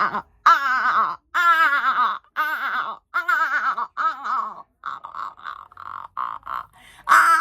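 A person's voice doing vocal sound effects: a series of wavering, warbling wails in separate bursts, then a quick string of short clipped notes, and another loud wail near the end.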